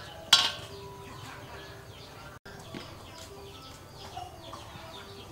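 Birds chirping over and over in short falling calls, with one sharp metallic clink from a stainless-steel bowl about a third of a second in.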